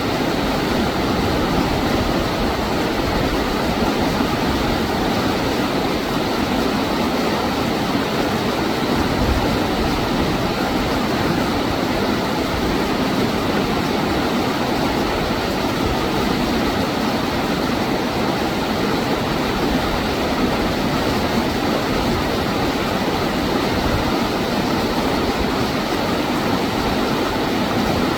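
Steady, even rushing of running water from a stream, with no separate events.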